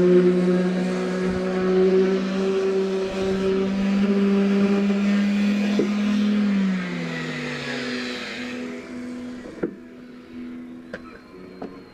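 Electric orbital sander running at a steady pitch with a hiss of sandpaper on the surface, then switched off about six and a half seconds in, its motor winding down with a falling whine. A few sharp clicks follow near the end.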